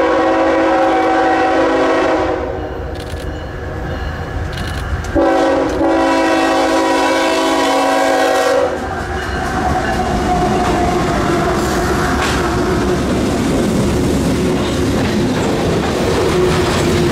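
Lead locomotive's Nathan K5HL five-chime air horn sounding for a grade crossing: a long blast ending about two seconds in, then a second long blast of about three and a half seconds. The locomotives and freight cars then roll past, with the steady rumble and clickety-clack of wheels on the rails.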